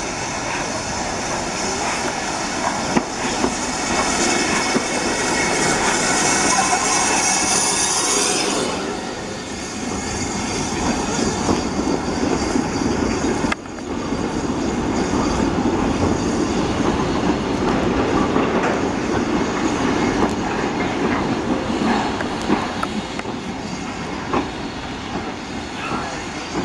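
BR Standard steam locomotive hauling a train away from the station: a loud steam hiss for the first eight seconds or so, then the train's wheels rumbling and clicking over the rails as it pulls out.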